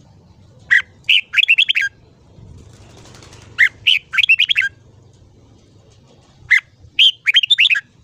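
Red-whiskered bulbul singing three short song phrases about three seconds apart. Each phrase is one or two clear notes followed by a quick run of warbled notes.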